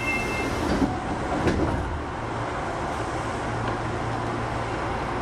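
Osaka Metro 25 series subway train running, heard from inside the car: a steady rumble of wheels on rail, with two short knocks about a second and a second and a half in.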